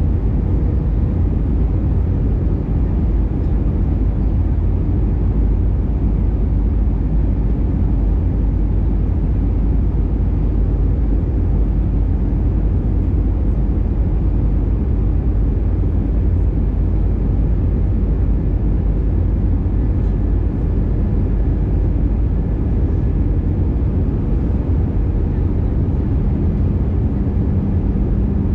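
Steady cabin noise inside an Airbus A320 in flight: the engines and airflow heard through the fuselage as an even, low rumble. A faint steady hum joins it near the end.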